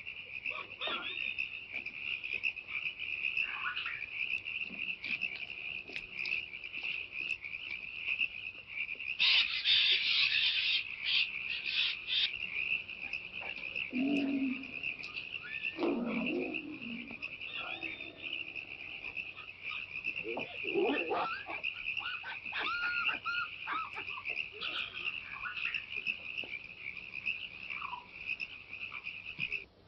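Night-time outdoor ambience: a steady high chirring chorus of insects and frogs that starts and stops with the scene. There is a brief louder rustle about nine seconds in, and a few dull thumps a little past the middle.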